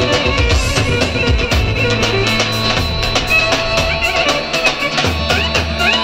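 Roman havası dance music with a fast, steady drum beat, a bass line and a melodic lead that slides between notes.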